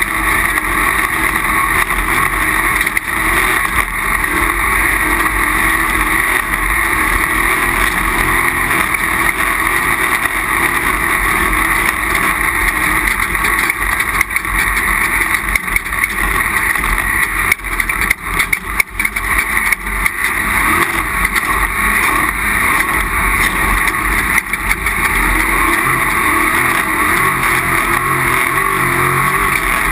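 Off-road race vehicle's engine running hard at speed, heard from onboard. It is loud and continuous, with brief dips and knocks in the middle stretch.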